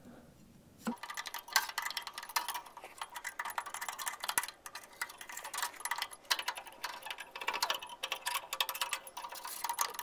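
A hand tool scraping and scratching at a band sawmill's blade guide to clean it. It starts about a second in and goes on in quick, uneven strokes of metal on metal, with a faint ringing tone under them.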